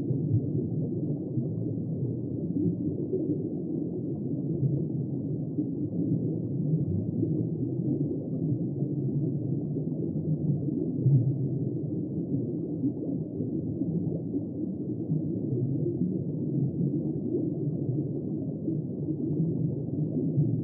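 Underwater water ambience: a steady, muffled low rush of water with nothing higher-pitched in it.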